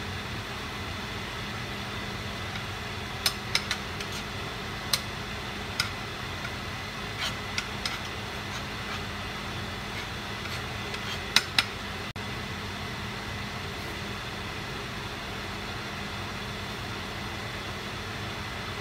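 Butter melting in a hot nonstick skillet, with scattered sharp pops and clicks over a steady background hum. Two louder clicks come about 11 seconds in, as a utensil works the butter in the pan.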